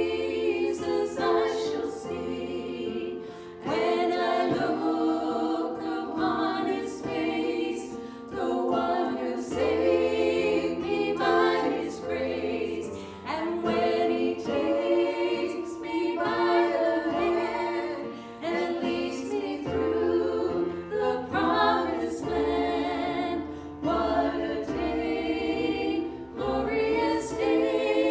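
Voices singing a gospel worship song, with low held accompaniment notes that change every couple of seconds.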